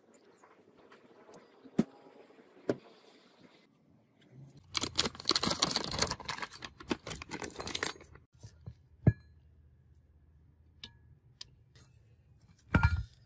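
Paper template rustling and crinkling for about three seconds as it is pulled off a steel plate. A few sharp clicks follow, and a louder metallic clatter near the end as the plate is handled.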